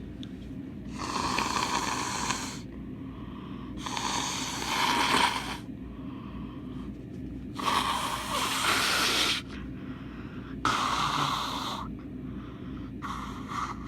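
A person with a bad cold breathing hard and noisily through a congested nose: four loud breaths about three seconds apart, each lasting over a second, with a fifth starting near the end.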